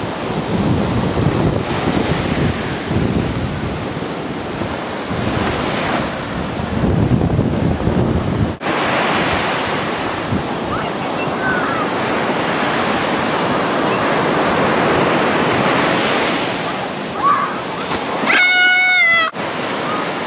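Surf breaking and washing up on a sand beach, with wind buffeting the microphone as a low rumble in the first part. Near the end, a brief high-pitched call is held for about a second.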